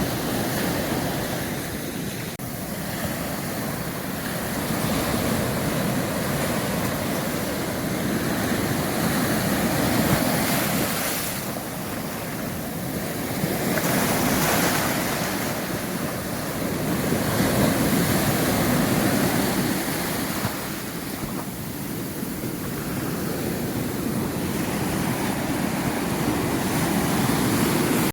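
Caribbean surf breaking on a beach and reef, the wash swelling and easing in repeated surges every few seconds, with wind on the microphone.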